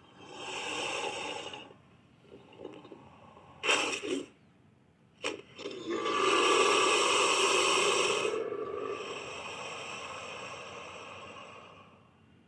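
Designed creature sounds for a Tylosaurus: a breathy rasp, two short sharp bursts, then a long rasping hiss-like call that slowly fades away.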